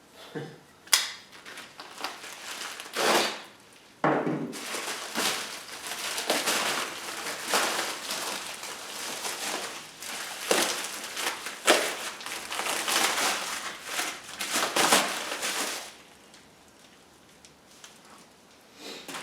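Packaging being handled and unwrapped: a few sharp knocks, then about twelve seconds of continuous crinkling and rustling that stops near the end.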